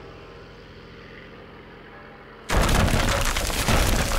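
A faint low drone, then about two and a half seconds in a sudden loud explosion boom with a crackling rumble that carries on and slowly fades, as of a plane crashing.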